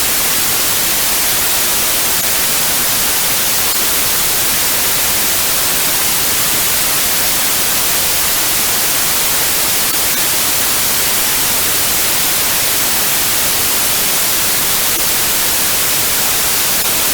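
Steady white-noise hiss, even and unbroken, brightest in the high frequencies.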